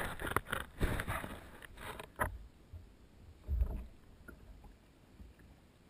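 Kayak paddle blades dipping and splashing in the river, a quick run of strokes over the first two seconds. A single low knock follows a little past three and a half seconds, then only faint water sounds.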